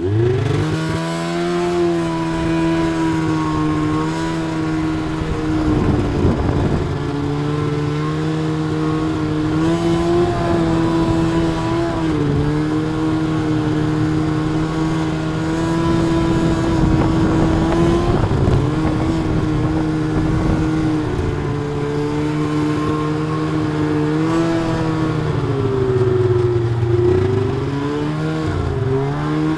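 A vehicle engine running steadily under way. It picks up revs right at the start, holds an even speed, then eases off and comes back up a couple of times near the end.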